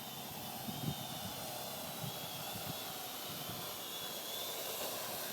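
Parrot AR.Drone quadcopter's electric motors and propellers whirring steadily with a high, slightly wavering whine, with a few low wind thumps in the first second.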